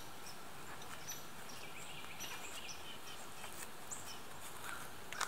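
Quiet woodland ambience: a steady background hiss with faint, scattered high bird chirps.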